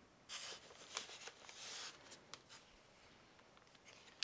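Faint rustling and crinkling of plastic coral-frag bags being handled, in two short bursts in the first two seconds, followed by a few light clicks and ticks.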